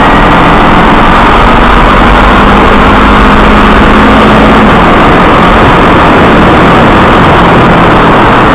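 Kawasaki Ninja 250R's parallel-twin engine running steadily under way, heard over loud, constant noise on the onboard camera's microphone. About five seconds in, the lower engine tone drops away.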